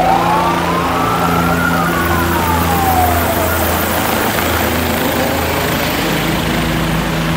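Police helicopter passing low overhead, its engine and rotor giving a steady drone. Over the first three seconds a siren wails, rising once and then falling away.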